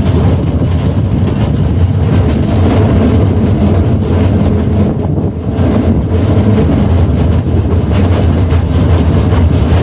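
Electric streetcar running along its track, heard from the open side window: a steady low rumble with rapid light clicking from the wheels on the rails.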